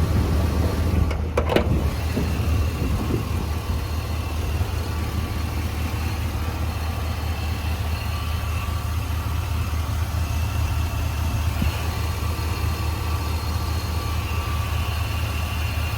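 Chevrolet Silverado 3500HD's 6.0-litre gas V8 idling steadily, with a couple of short knocks about a second in.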